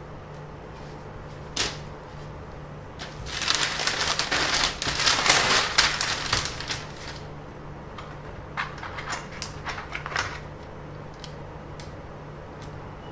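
Handling noise: a single click, then a few seconds of dense crackling rustle, then a scatter of sharp clicks, over a faint steady low hum.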